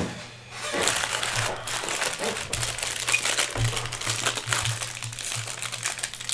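Foil sports-card pack wrapper crinkling as it is handled in the hands.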